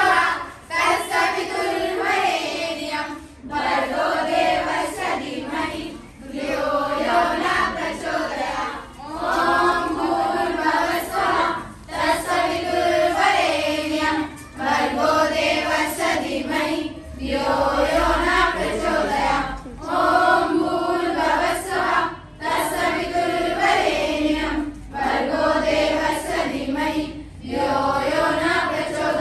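A group of girls and children singing a prayer together in unison, in short phrases with brief pauses for breath between lines.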